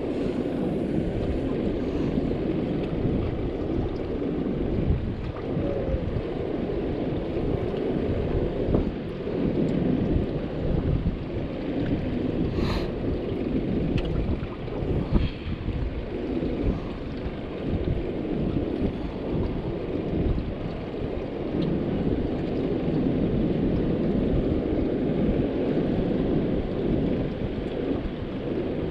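Wind buffeting the microphone aboard a small fishing boat: a steady low rumble with water noise, and a sharp click about 13 seconds in.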